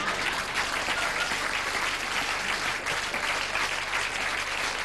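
Theatre audience applauding.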